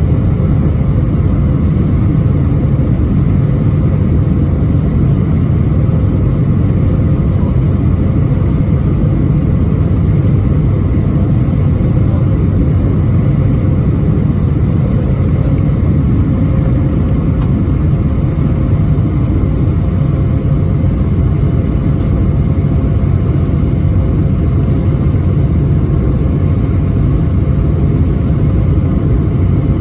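Steady cabin drone of an Airbus A320-231 with IAE V2500 engines: a deep, even rumble of engines and airflow with a faint steady hum above it.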